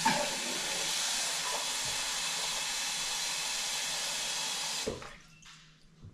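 Kitchen faucet running a steady stream of water into a stainless-steel sink, shut off about five seconds in.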